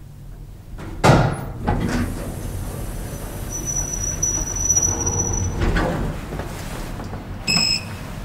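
1997 KONE hydraulic elevator's sliding doors opening with a clunk about a second in, the door operator running with a faint high whine in the middle. Near the end a short electronic beep as the car button registers a press.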